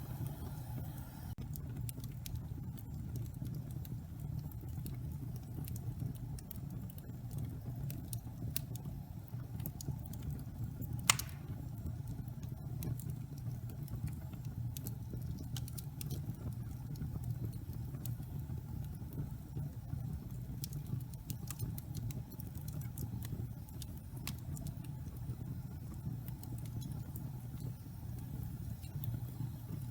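Wood fire in a fireplace crackling: scattered small snaps and one sharp, loud pop about eleven seconds in, over a steady low rumble.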